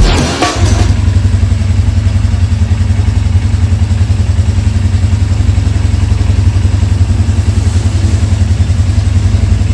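Vento Falkon motorcycle's 220 cc air-cooled four-stroke OHC engine idling steadily, with an even, unchanging beat; the tail of background music is heard at the very start.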